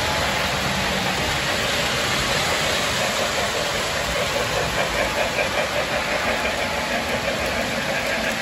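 O gauge model steam locomotive and train running along three-rail track: a steady whirring rumble of the motor and wheels, with a rhythmic beat of about three a second in the middle as the engine comes close.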